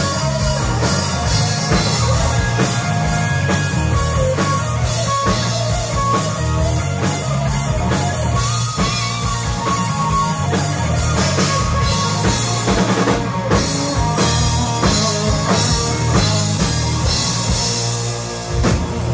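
Live rock band playing: drum kit, bass and electric guitars, with an electric guitar playing a lead line of held notes over the steady beat.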